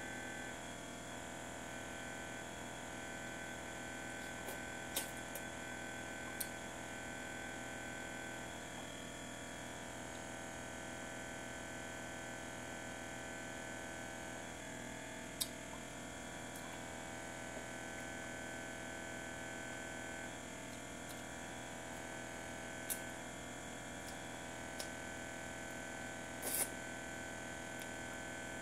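Steady mechanical hum carrying several steady tones, typical of a running aquarium's equipment, with a handful of sharp clicks scattered through, the loudest a double click near the end.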